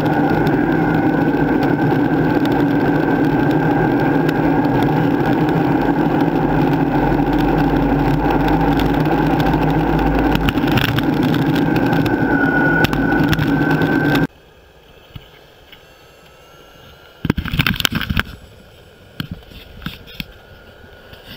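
Dual-motor electric longboard riding on asphalt, heard from deck level: a steady rumble of the urethane wheels on the road with the electric motors' steady high whine, which rises slightly near the end of the ride. About two-thirds of the way in it cuts off suddenly to a much quieter hiss broken by a brief burst of noise.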